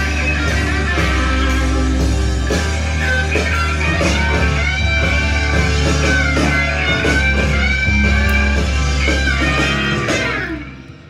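Guitar-led rock music playing from a vinyl record on a turntable, through an Akai AM-U3 amplifier set to phono and out of loudspeakers into the room. It drops away sharply near the end.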